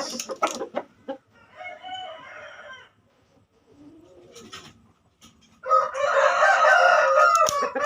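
Rooster crowing: a fainter crow about a second and a half in, then a loud crow of about two seconds near the end. The bird is a fighting cock only just recovered from ngorok, a respiratory illness.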